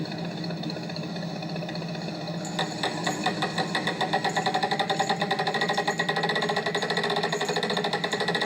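A small engine running with a steady hum. About two and a half seconds in, a fast, even rattling rhythm joins it.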